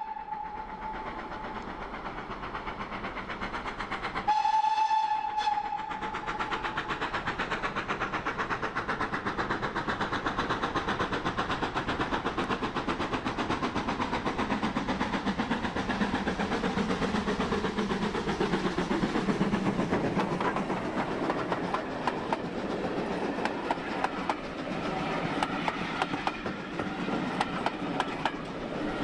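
GWR Manor class 4-6-0 steam locomotive No. 7828 Odney Manor sounds a short whistle blast about four seconds in. Its exhaust beats then grow louder as it approaches and passes. Near the end the coach wheels click over the rail joints as the train goes by.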